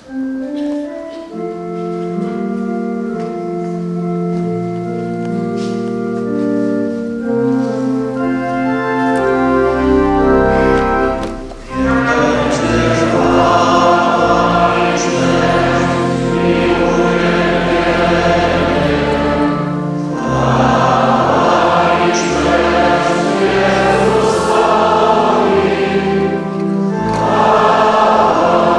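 Church organ plays an introduction of slow, held chords that change in steps. About twelve seconds in, the congregation joins in, singing a hymn over the organ.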